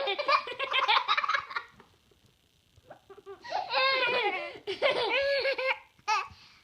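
Young children laughing hard in high-pitched fits of giggles. The laughter stops about two seconds in, starts up again after a pause of about a second and a half, and ends with a short last burst.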